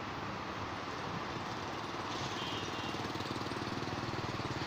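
A motor engine running steadily with a fast low pulse, growing a little louder about two seconds in, over steady outdoor background noise.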